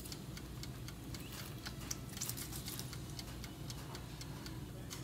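Chef's knife and fork cutting cooked chicken breast on a cutting board: a run of light, irregular clicks and taps of the blade and fork against the board, over a low steady hum.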